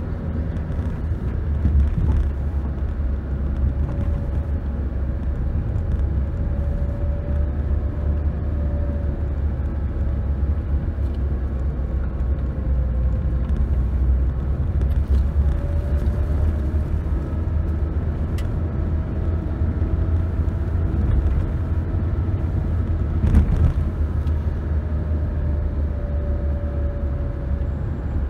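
A car driving along a paved road, heard from inside the vehicle: a steady low rumble of tyres and engine, with the engine hum slowly rising and falling as the speed changes. A single thump, as from a bump in the road, comes about two-thirds of the way through.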